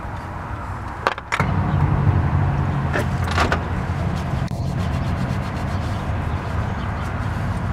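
A few sharp clicks and knocks of metal engine parts being handled at the throttle body. Under them runs a steady low rumble that drops out briefly and comes back louder about a second and a half in.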